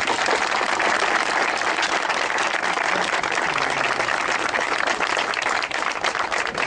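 Crowd applauding: a dense, steady mass of hand-clapping that holds at full strength throughout.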